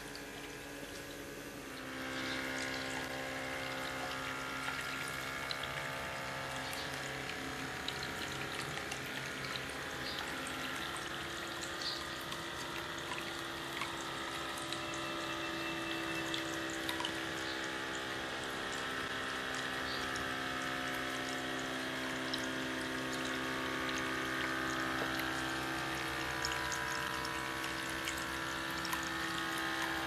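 Water trickling from one small clay cup into the next and splashing into the pebble-filled basin of a homemade tabletop fountain: a steady flow with fine drip splashes. It gets louder about two seconds in.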